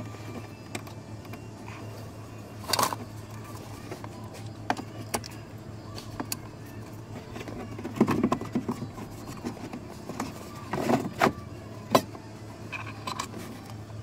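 Plastic dashboard trim in the glove-box opening being handled and pushed into place: scattered clicks, knocks and rattles, loudest in short clusters about 3, 8, 11 and 12 seconds in. A steady low hum runs underneath.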